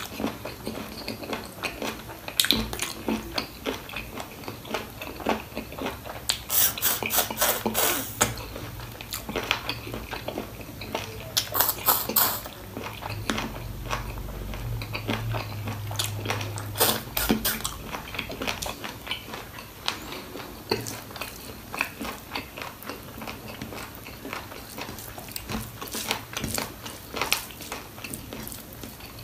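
Close-up eating sounds of a person chewing and biting on goat trotters (mutton paya) with rice. There are many small wet clicks, and bursts of rapid sharp clicks come three times.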